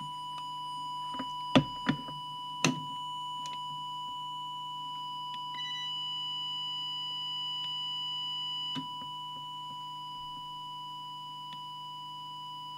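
Steady 1 kHz test tone from an audio oscillator, fed into a CB radio to set its FM transmit deviation. For about three seconds in the middle it turns harsher, with extra overtones, and a few light knocks come in the first three seconds.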